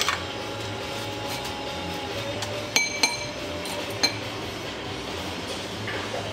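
A metal fork clinking against an open sardine tin and a ceramic bowl as the sardines are scraped out. There are a few sharp taps, a pair of them with a brief metallic ring about three seconds in.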